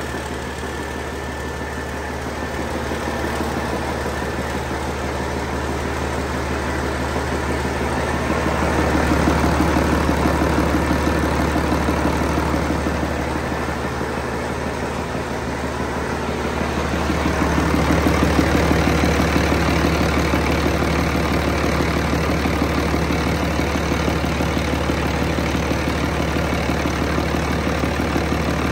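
1994 International DT466 turbocharged six-cylinder diesel with a mechanical injection pump, running steadily during a test run on an engine stand. It gets louder for a few seconds twice, about a third of the way in and again past halfway.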